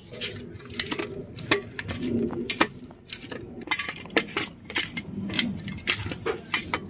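Hand mixing small raw fish with salt and turmeric in a stainless-steel bowl: irregular light clinks and taps of fingers and fish against the metal.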